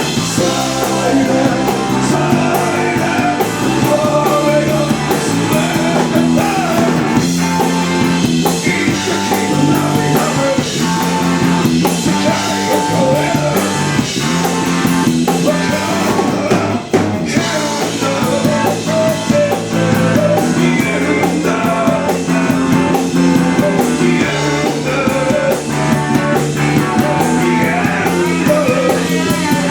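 Rock band playing live, with guitars and drum kit, loud and steady, with a momentary break a little past halfway.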